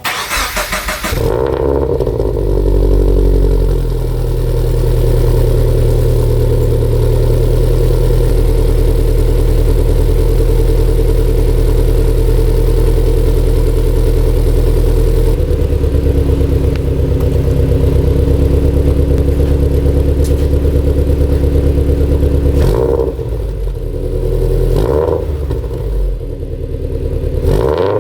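Subaru BRZ's flat-four boxer engine, fitted with catless unequal-length headers and a single-exit cat-back exhaust, cranks and catches, then runs at a high idle. The idle drops to a lower note about fifteen seconds in, and the engine is given a few short revs near the end.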